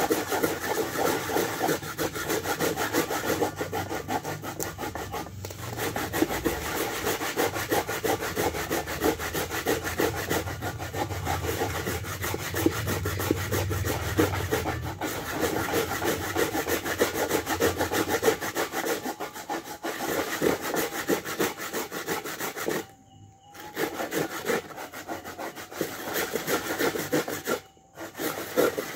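Coconut being grated by hand: fast, continuous rasping strokes of the grater against the coconut flesh, stopping briefly twice near the end.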